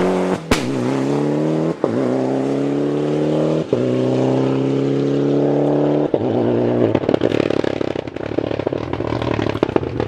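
Rally car engine accelerating hard through the gears: the note climbs in pitch and cuts briefly at each of four upshifts, the first with a sharp crack. After about six seconds it gives way to a more distant, rougher engine with irregular crackling.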